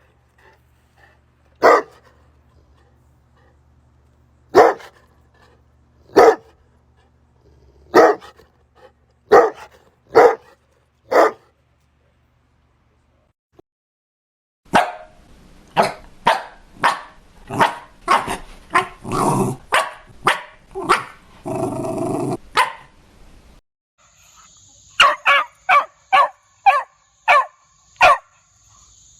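Dogs barking, in a few separate recordings: single barks a second or so apart, then after a short pause a fast run of barks including a couple of longer, rough ones, then another series of barks over a faint steady high tone.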